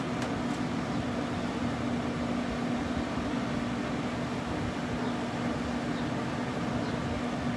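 Steady hum of a Pit Boss Whiskey Still vertical pellet smoker's fan running while the smoker holds its cooking heat, with one constant low tone.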